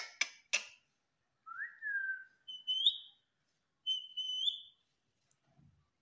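Female Indian ringneck parakeet giving a few sharp clicks, then three whistled notes: a lower one that rises and falls, and two higher ones that each step up in pitch.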